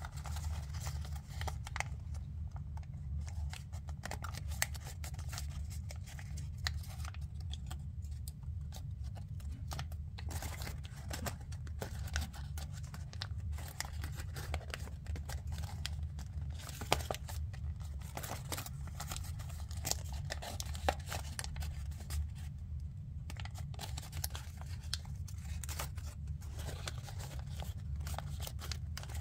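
Origami paper being pinched, creased and folded by hand: scattered crisp crinkles and small ticks of paper, with a steady low hum underneath.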